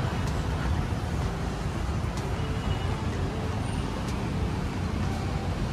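Steady road traffic noise, an even low rumble with no distinct passes.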